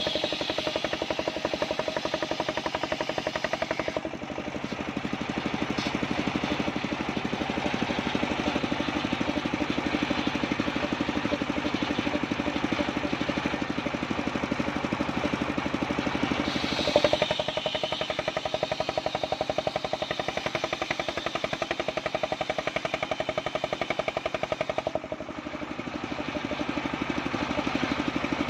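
Engine of a homemade circular saw rig running steadily under load while sawing mindi wood, with a fast even pulse. The sound eases off briefly twice, and there is one sharp knock about two-thirds of the way through.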